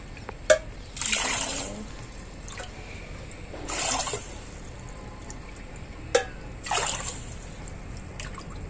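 Water poured from a bowl into a pan of sugar for sugar syrup, in three separate pours. Two sharp clicks, about half a second in and just after six seconds, the first the loudest sound.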